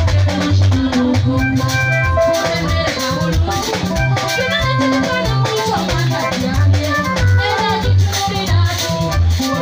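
Live band music through a PA: sustained keyboard chords over a pulsing bass line and drums, with a busy rattling high percussion pattern.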